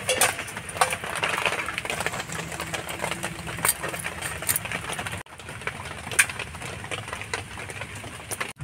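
Crab shells being cut and broken apart by hand on a bonti, a curved upright kitchen blade: scattered sharp clicks and crunches over a faint low hum.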